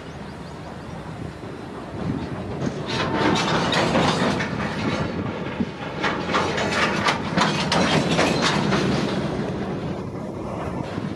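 WDP4D diesel-electric locomotive passing with its express coaches: engine running under a low rumble and wheels clicking rapidly over rail joints, growing louder about two seconds in and easing off near the end.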